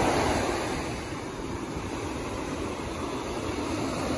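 Ocean surf breaking and washing up a sandy beach: a steady rushing noise, a little louder at the start and easing slightly about a second in.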